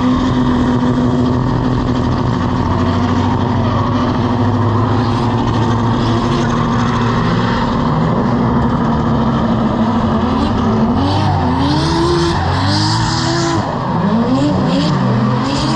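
Drift car's engine held at steady high revs as it slides with its rear tyres spinning on the tarmac. From about ten seconds in, the revs rise and fall in quick swoops, more than once a second, as the throttle is worked through the drift.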